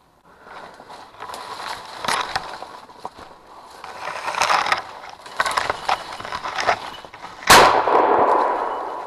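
Rustling and crashing through brush and leaves, then a single shotgun shot about seven and a half seconds in, fired at a flushing woodcock; the report rings on and fades over the next second or so.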